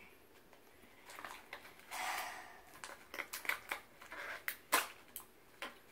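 A small plastic L.O.L. Surprise toy capsule being handled and pried at to get it open: a short scrape about two seconds in, then a quick string of sharp plastic clicks.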